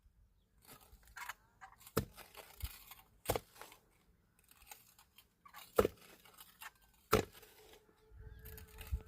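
Crunching and crackling, broken by about four sharp snaps a second or two apart.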